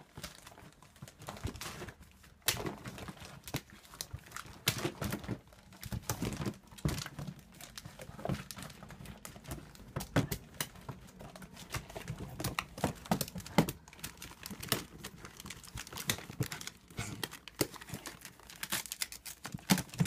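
A small dog scrambling in a clear plastic storage bin packed with wrapping-paper rolls. The plastic and paper give irregular crinkling, rustling and clattering knocks as it climbs in and shifts about.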